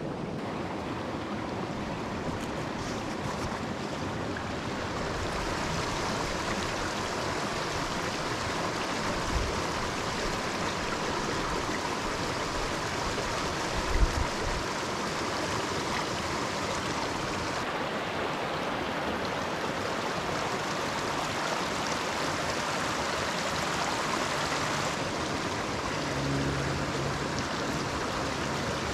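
Mountain stream rushing steadily over rocks, with two dull knocks about nine and fourteen seconds in.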